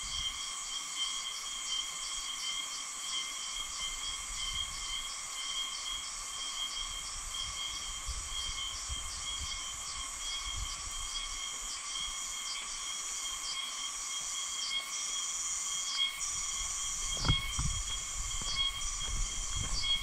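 Steady chorus of forest insects, several shrill tones held without a break, with a few low thumps near the end.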